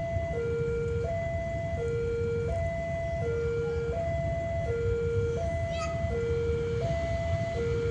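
Railway level-crossing warning alarm sounding its two alternating tones, high and low, switching about every three-quarters of a second, signalling an approaching train. A low rumble runs underneath, with a brief high squeak about six seconds in.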